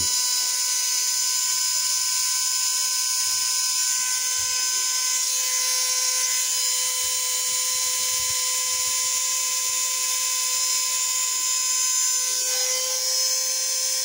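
Opened-up hair dryer's small motor and fan running steadily with a high whine, blowing cold because the heat switch is off.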